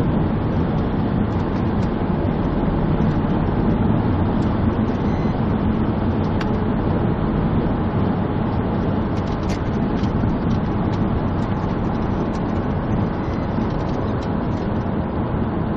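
Police patrol car's steady engine and road noise, a continuous low rumble with a few faint clicks.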